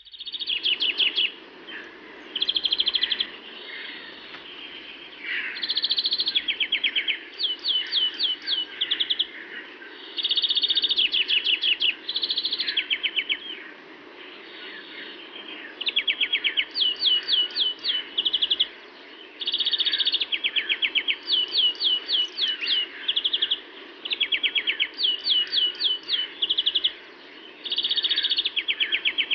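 Small birds singing and chirping: runs of quick, high, sharp notes alternate with short buzzy phrases, repeated over and over, above a steady low background hum.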